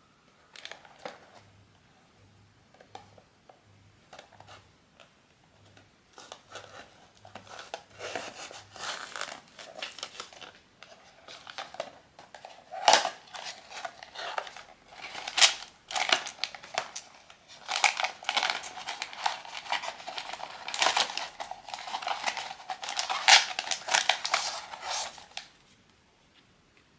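Blind box packaging being opened by hand: a few light clicks and rustles, then a long stretch of crinkling, crackling and tearing of the wrapper and box that stops a little before the end.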